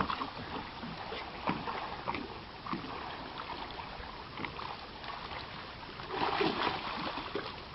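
Water lapping and splashing around a small boat, with scattered light knocks and clicks.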